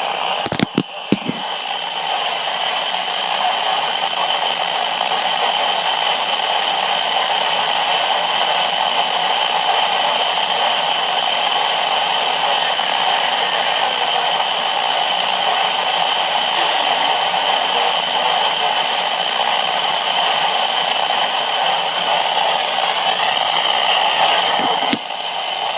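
Radio static: a steady, loud hiss from a weather radio receiver whose broadcast voice has broken off, with a few clicks in the first second or so.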